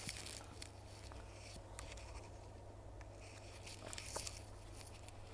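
Quiet workbench handling: a few light clicks and scrapes of tools and parts being moved on a rubber mat, over a steady low electrical hum.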